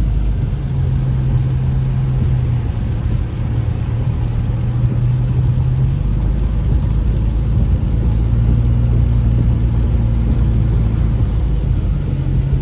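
Subaru car driving on a wet road, heard from inside the cabin: a steady low engine hum and tyre hiss. The engine note shifts a little in pitch about halfway through.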